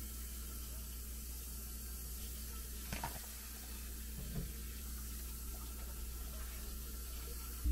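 Steady low hum and hiss, with two faint clicks from a plastic freezer tray and its lid being handled, about three and four and a half seconds in.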